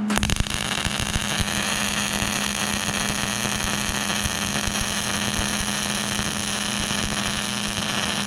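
Electric arc welding on a steel frame: the arc strikes suddenly and runs as a steady, even crackling sizzle. A steady low hum runs underneath.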